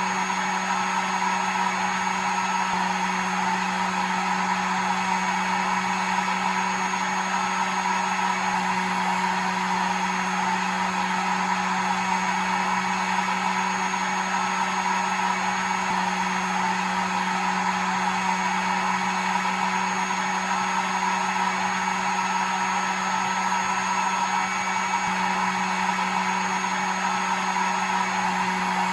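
Hair dryer running continuously at a steady speed: an even rush of blown air over a low motor hum and a faint high whine.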